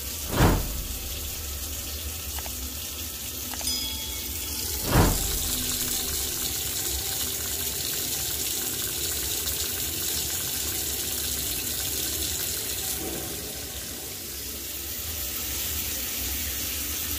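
Water running steadily from a tap. Two dull thumps come through it, about half a second in and about five seconds in.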